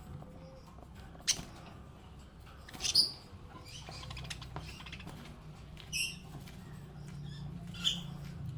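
Small pet parrots giving short, high chirps: four separate calls spread a second or two apart, the loudest about three seconds in, over a low steady hum.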